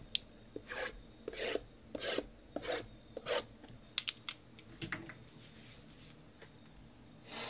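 Cardboard trading-card boxes being handled and slid against each other: a run of short rasping scrapes with a couple of sharp clicks about four seconds in. It then goes quieter, with one more scrape at the end.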